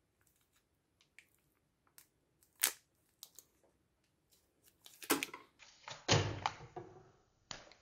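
MRE food pouches being handled and squeezed: scattered clicks and taps and one sharp snap, then a louder stretch of plastic-and-foil crinkling from about five seconds in.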